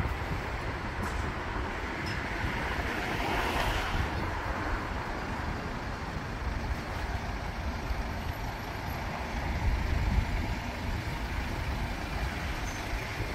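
Outdoor road-traffic noise, steady and even, mixed with wind rumbling on the microphone.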